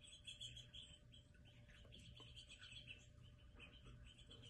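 Near silence, with faint, high, short chirps scattered throughout.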